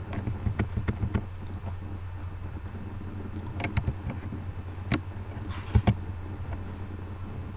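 Computer keyboard keys and mouse clicks tapped in scattered short clusters over a steady low electrical hum, the loudest clicks a little past halfway.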